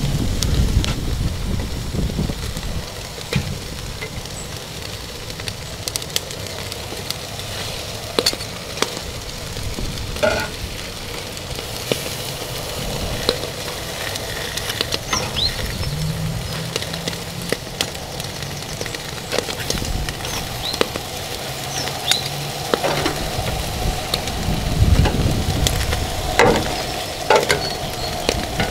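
Food sizzling on a barbecue grill, with scattered crackles and clicks. Gusts of wind rumble on the microphone, strongest near the start and again about three-quarters of the way through.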